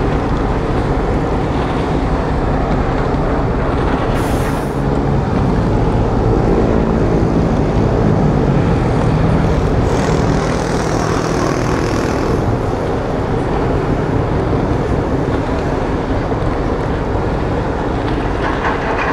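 Steady low rumble of a ro-pax ferry's diesel engines as it manoeuvres in harbour, with a droning hum standing out from about six to ten seconds in.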